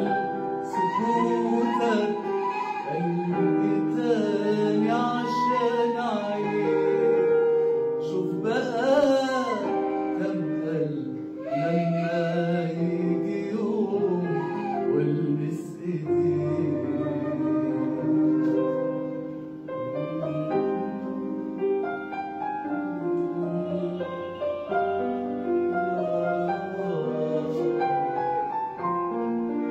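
A man singing a melodic song with expressive, wavering held notes, accompanied by instruments holding steady notes beneath the voice.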